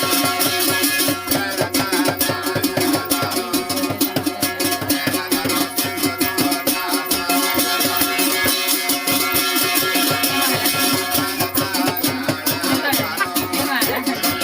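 Garhwali folk dance music: a fast, even beat of percussion strikes over steady sustained instrumental tones.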